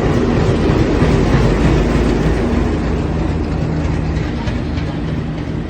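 Indian Railways WDG3A diesel locomotive humming steadily as it runs, with a few faint clicks near the end; the sound eases slightly toward the end.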